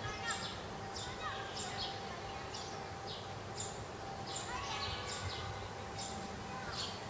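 Bird chirping over and over in short, high notes that slide downward, about two a second, over steady outdoor background noise with a faint steady hum.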